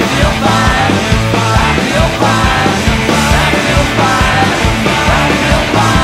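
Heavy blues-rock band playing: distorted electric guitars over bass and drums with a steady, driving beat, guitar notes bending around the melody.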